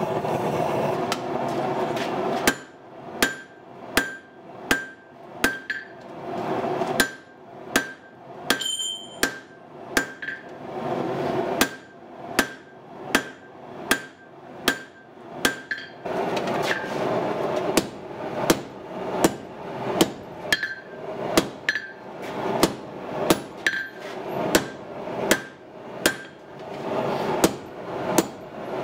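Hand hammer blows on a red-hot Damascus steel knife blank on an anvil, starting about two seconds in and landing about one and a half times a second with a couple of short pauses, each blow with a short metallic ring. A steady rushing noise from the forge runs underneath.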